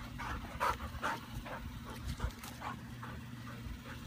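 Vizsla panting in short quick breaths, mostly in the first second and a half, then quieter.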